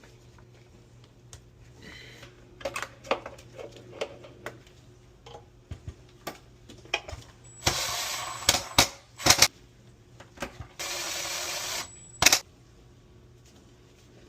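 Clicks and knocks of plastic fittings and tools being handled while a refrigerator's water filter holder and broken water line are repaired. Two loud hissing bursts of about a second each come a little past the middle and again a few seconds later.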